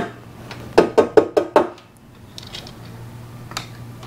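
A quick run of about five knocks on a removed plastic front bumper, each with a short ring, about a second in. A single click follows near the end.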